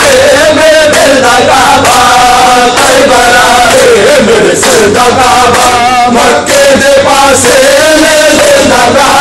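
A group of men chanting a nauha, a Shia mourning lament, together in a loud, continuous sung chant.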